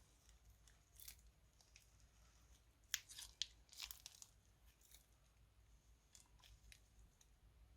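Soft, scattered crunching and crackling from slime-making materials being handled by hand, with a cluster of louder sharp crackles about three to four seconds in.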